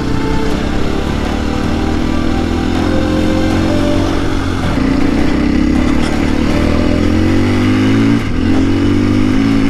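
Off-road motorcycle engine accelerating along a gravel track, its pitch climbing, then dropping briefly about eight seconds in as it shifts up a gear and climbing again.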